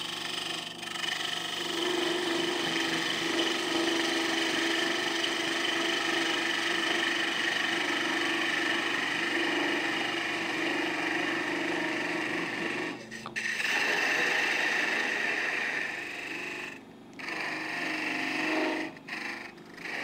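Small wood lathe running while a turning tool cuts into a spinning wooden blank, throwing off shavings: a steady hum with the hiss of the cut. The sound dips briefly a few times in the last third.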